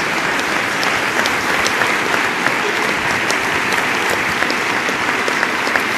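Audience applauding steadily: many hands clapping in a dense, even patter that holds at one level.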